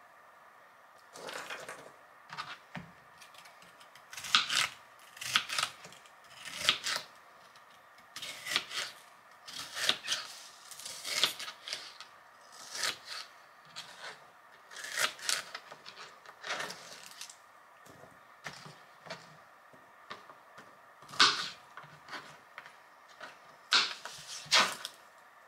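Kitchen knife slicing a crisp green bell pepper on a plastic cutting board: irregular crunchy cuts, each ending in a tap of the blade on the board, some in quick pairs, about one a second.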